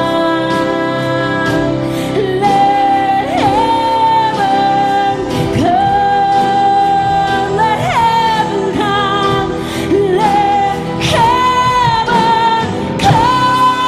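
A live church worship band playing a praise song, with the lead voice holding long notes and sliding up into them.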